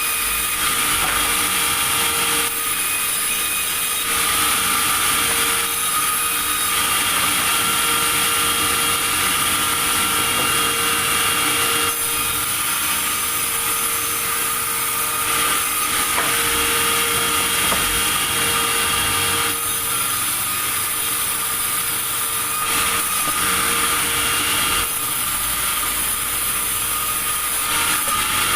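Sawmill saw cutting wood: a continuous loud machine noise with a steady hum, its character shifting every few seconds.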